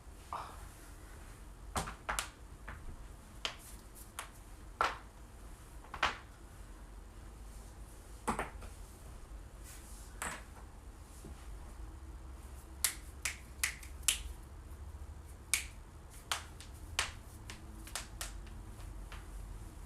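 Human joints cracking and popping: a long run of short, sharp cracks at irregular intervals, some coming in quick clusters of two or three, over a faint low hum.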